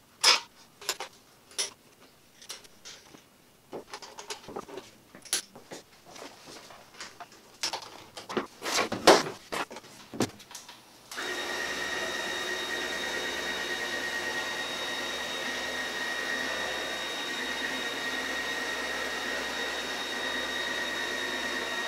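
Irregular knocks and clatter of hoses and fittings being handled. About eleven seconds in, a Dayton wall-mount vacuum switches on abruptly and runs steadily with a high whine.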